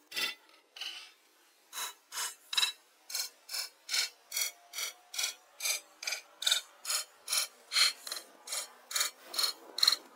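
Hammer blows on a log platform, a steady run of about two to three strikes a second, each with a short ring.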